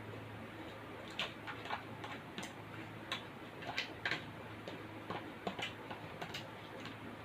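Close-up eating sounds: irregular sharp clicks and smacks of chewing food, about two a second, over a steady low hum.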